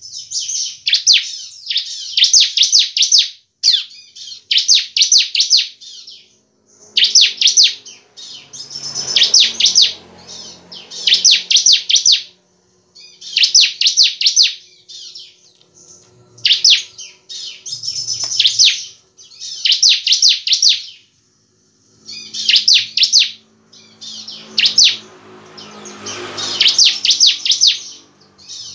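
Caged ciblek (bar-winged prinia) of the pale 'semi-crystal' colour form singing steadily. It gives a string of short, rapid, high-pitched trilled bouts about every two seconds, with only brief pauses between them.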